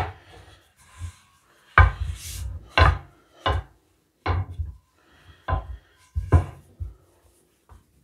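Wooden rolling pin rolling out yeast dough on a stone countertop: a knock and a short scraping rub at each stroke, about seven strokes roughly a second apart.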